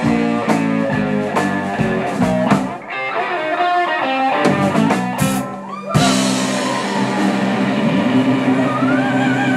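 Rockabilly trio of electric guitar, bass and drums playing short rhythmic stabs, then hitting one chord about six seconds in and letting it ring, with a guitar line sliding over it near the end.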